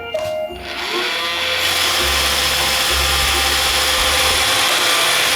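iRobot Roomba 530 starting a cleaning run: the last of its short start-up beeps, then its vacuum and brush motors spin up over about a second and a half and run steadily with a faint whine as it drives.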